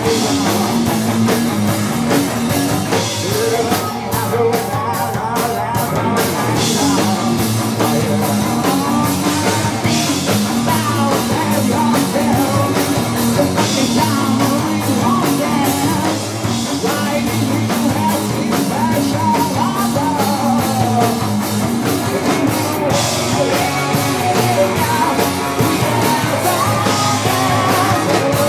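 A rock band playing live: electric guitars, bass guitar and drum kit, with a singer.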